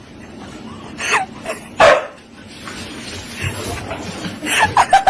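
A dog giving a few short barks: one about a second in, a louder one near two seconds, then a quick run of short yelps near the end.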